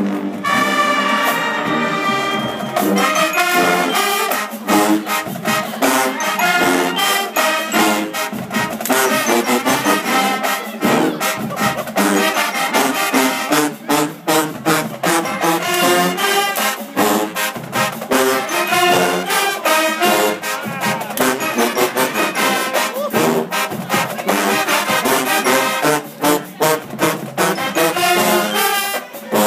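Marching band playing a brass arrangement of a hip-hop song, trombones and trumpets carrying the tune over steady drum hits.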